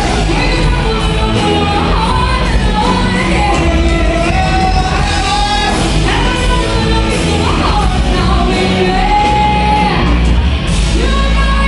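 Live band playing: a woman sings lead over electric guitars, electric bass and drums, holding long notes that bend up and down.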